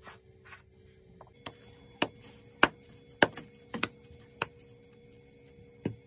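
A run of sharp knocks, about one every 0.6 seconds from a second and a half in, with a last one near the end, over a faint steady hum.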